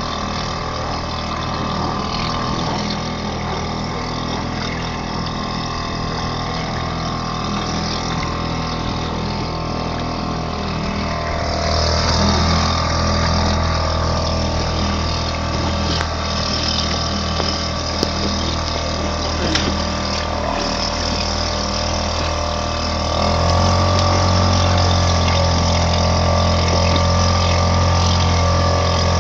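Yamaha outboard motor on a small boat running steadily, getting louder in two steps, about twelve seconds in and again about twenty-three seconds in.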